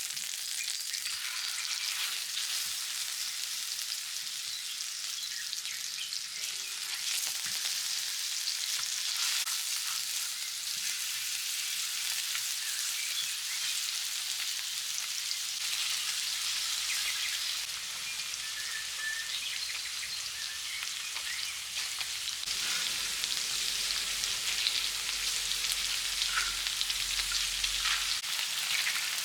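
Food frying in hot oil: a steady, dense sizzle and crackle, a little louder in the last third.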